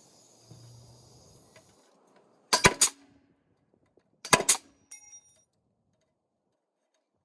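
Hammer driving nails through a metal joist hanger into wood: two quick bunches of blows about two seconds apart, followed by a lighter tap with a brief metallic ring.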